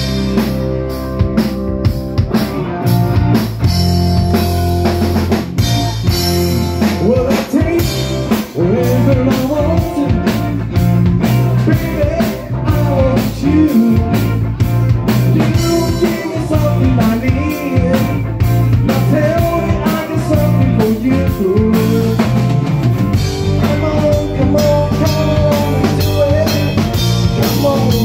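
Live blues band playing: drum kit keeping a steady beat under bass and electric guitars, with a melody line that bends in pitch.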